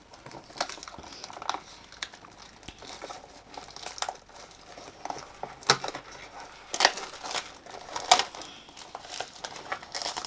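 Crinkling and crackling of a small blind-box toy package being opened and handled, with irregular sharper crackles now and then, loudest a few times in the second half.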